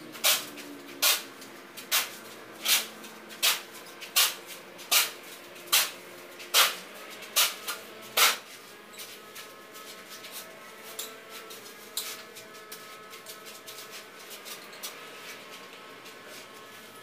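Steel shovel scraping and knocking on a concrete floor as sand is scooped, a sharp stroke about every second for the first half, then lighter, irregular scrapes and clicks.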